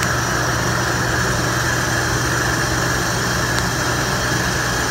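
CNC lathe running with its spindle turning a bronze shaft held in a collet and supported by the tailstock: a steady machine hum and hiss. A faint tick comes about three and a half seconds in.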